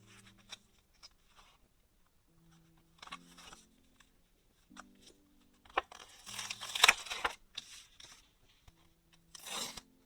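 Packaging being torn open by hand: a long, loud rip about six seconds in and a shorter one near the end, over soft background music.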